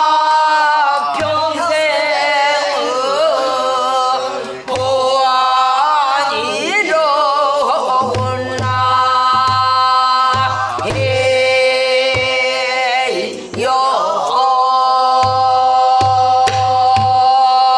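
A woman sings pansori in a full, sustained voice with wide bends and slides in pitch. She accompanies herself on a buk barrel drum, with low beats on the drumhead and sharp stick taps that come in clusters.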